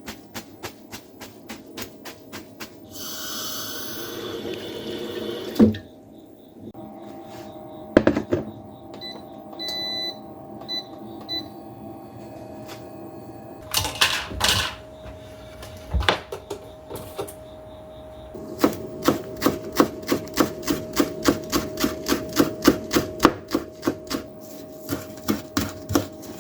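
Kitchen work sounds: scattered clicks and knocks, a short hiss, and a few sharp impacts, then a long run of rapid, even knocks at about four a second.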